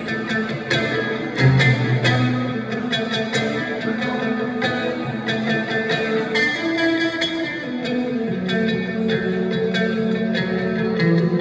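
Blues improvisation in B minor: electric guitar picking lead notes over a looped guitar and bass backing.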